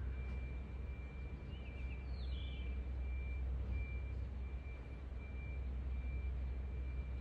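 Outdoor ambience: a steady low rumble with a faint, high-pitched beep tone that switches on and off, and a few brief chirps about two seconds in.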